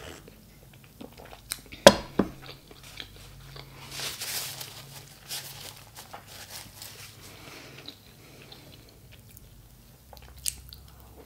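Close-miked mouth sounds of a person sipping and swallowing coffee, with a sharp knock about two seconds in. A paper napkin rustles around four seconds, then small wet mouth clicks follow.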